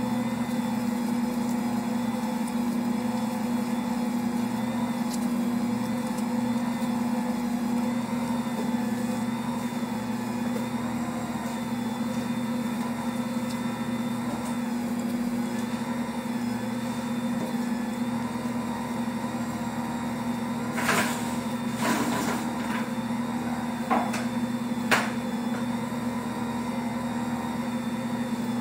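Ankarsrum stand mixer running steadily at its lowest speed with the dough hook, kneading bread dough: a steady motor hum. Four short knocks sound close together about three-quarters of the way through.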